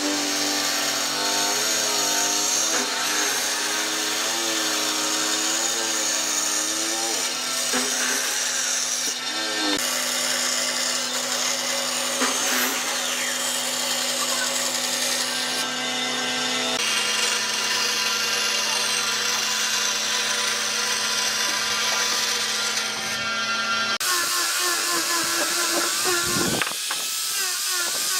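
Bench band saw running and cutting a curve through a wooden board, its pitch wavering as the blade loads up. About four seconds before the end, an angle grinder fitted with a sanding disc takes over, sanding the wood.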